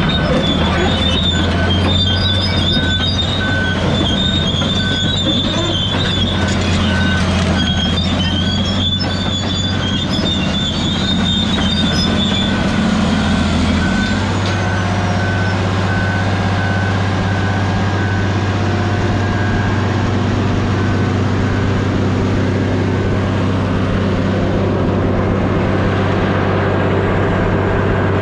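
Large Caterpillar crawler dozer's diesel engine running steadily, with high metal squealing and clanking for about the first half that stops around the middle, and a faint repeated beep under it.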